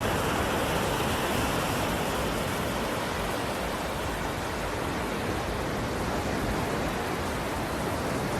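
Steady, even rush of falling or running water, with no breaks or surges.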